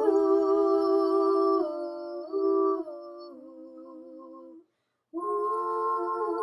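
Wordless hummed vocal harmony from a jingle: held notes in two or more parts that step down in pitch and fade, break off for about half a second near the five-second mark, then come back.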